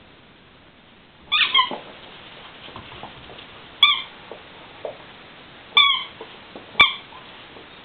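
Pet's squeaky toy squeaking: a quick run of squeaks about a second in, then three single squeaks a second or two apart, with soft fumbling sounds between them.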